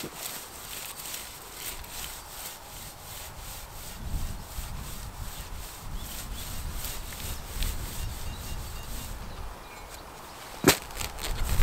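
Repeated short scraping or rustling strokes, about three a second, over a low rumble, then a sharp knock near the end followed by a few more.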